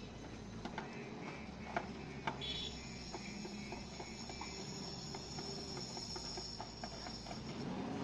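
JCB wheel loader working its bucket in mud: the engine runs low and steady under scattered clanks and knocks, the sharpest about two seconds in, with a thin high whine joining about two and a half seconds in.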